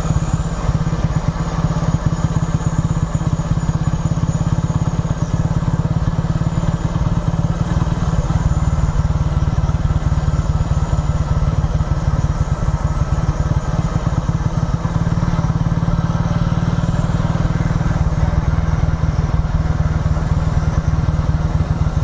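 Motorcycle engine running steadily while the bike is ridden along at an even pace.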